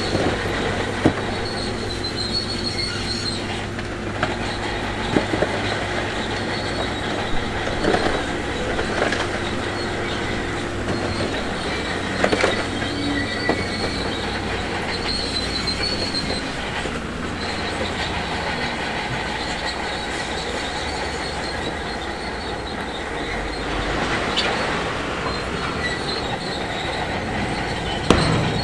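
Shantui DH17C2 crawler bulldozer working: its diesel engine runs steadily while the steel tracks squeal and clank. Scattered sharp knocks run through it, several times over.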